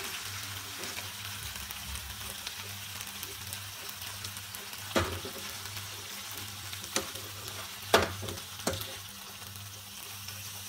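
Schezwan sauce sizzling in a non-stick frying pan, a steady hiss, while a steel fork and spoon lift chicken thighs out and clink sharply against the pan and plate four times in the second half, loudest about eight seconds in.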